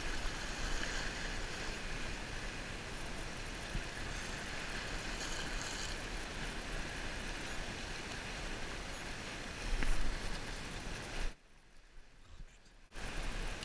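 Small waves washing against a rocky shoreline, with wind on the microphone, as a steady noise. About ten seconds in there is a brief louder surge, and shortly after, the sound drops almost to nothing for about a second and a half before returning.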